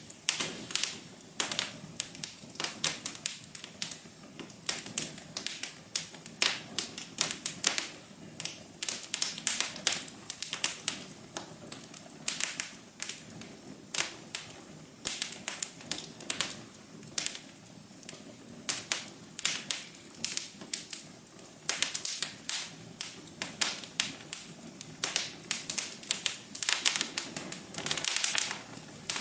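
Wood fire crackling in a fireplace: irregular sharp pops and snaps, sometimes several a second and thickest near the end, over a soft steady low hum.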